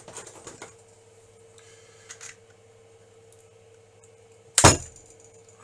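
Light clicks and rattles of pliers and 3D-printed plastic parts being handled, then one sharp, loud clack about four and a half seconds in.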